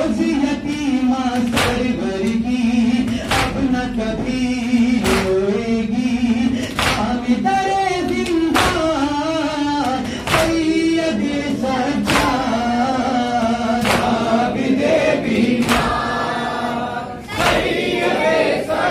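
Men's voices singing a Shia noha lament in unison, lead and chorus together. A steady beat of matam, hands striking chests in unison about once a second, runs through the singing.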